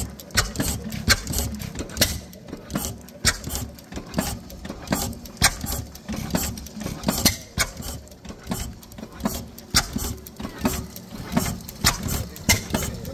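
Vintage vertical single-cylinder stationary engine running, its valve gear and moving parts giving sharp clicks about two to three times a second over a low running rumble.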